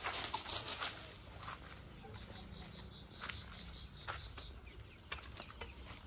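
Footsteps and rustling while walking along a garden path, as sharp scattered clicks that are loudest in the first second. About two seconds in, a run of high chirps repeats about four times a second for roughly two seconds.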